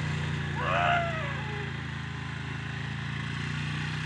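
Small petrol engine running steadily at an even pace, with a brief shout from a person about a second in.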